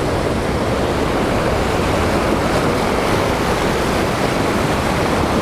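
Rough ocean surf breaking and washing around rocks: a steady, loud rushing noise with no pauses.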